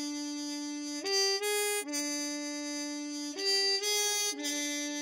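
Sampled harmon-muted trumpet from ProjectSAM's Swing! library playing a slow legato phrase, one note at a time. A long low note is broken about a second in by two short higher notes, then settles on the low note again. The same two-note figure comes back past the middle and resolves into another long low note.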